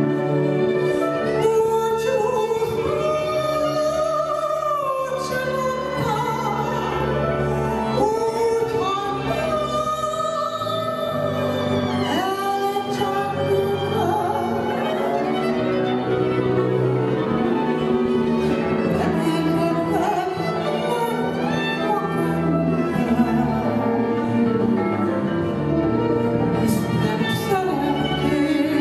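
A woman singing a Hungarian nóta through a microphone, with a live band of violin, clarinet, cimbalom and double bass accompanying her.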